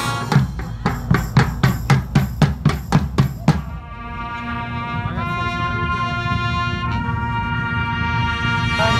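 Dweilorkest (Dutch street brass band) playing: a run of about a dozen loud drum strokes, then held brass chords from trumpets and trombones.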